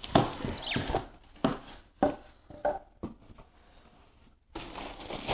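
Unboxing handling noise: a plastic-wrapped tower fan is pulled out of its cardboard box. About five knocks and scrapes of the fan and cardboard come in the first three seconds, then a quiet spell, then a rustle near the end.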